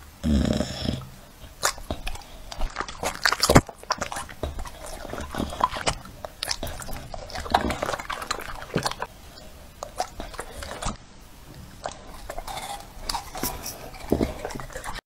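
Dog chewing and crunching pieces of raw apple and dragon fruit: irregular crisp crunches and wet mouth smacks.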